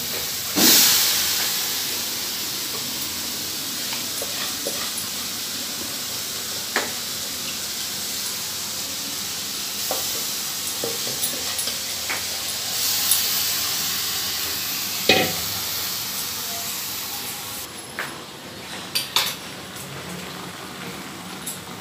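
Yogurt-marinated chicken hitting a hot steel kadai of onions with no oil, sizzling loudly as it lands about half a second in. The sizzle then runs steadily and fades slowly, swells again a little past halfway as more is scraped in, and drops near the end. Scattered metal knocks come from the bowl and spatula against the pan.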